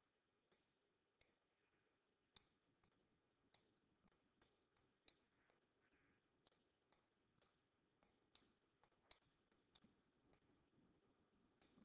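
Faint, irregular sharp clicks, about two a second, from a stylus tip tapping on a writing surface as each handwritten stroke is put down.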